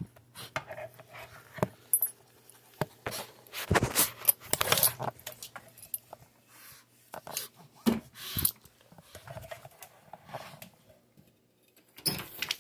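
Irregular rustling, clicking and light metal jangling, loudest in a cluster about four to five seconds in: a dog's harness and leash clip being handled and clipped on.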